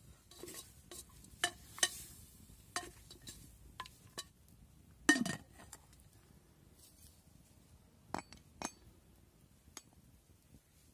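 Metal clinks and knocks from a stainless steel pot as its lid is seated and its clamp handle worked: a run of light clinks, one louder clank with a short ring about five seconds in, then two sharp clinks near eight seconds.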